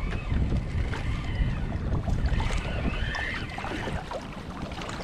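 Wind buffeting the microphone and sea water lapping around a kayak, with a faint high whine that rises and falls at the start and again midway.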